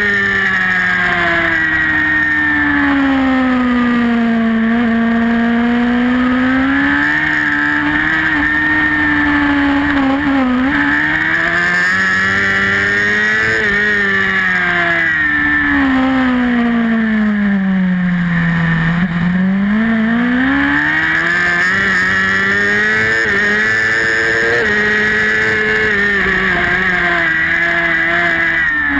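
Racing superbike engine heard from onboard at full race pace. Its note climbs and falls over and over as the rider accelerates through the gears on the straights, then shifts down and brakes for corners. The deepest drop comes about two-thirds of the way through.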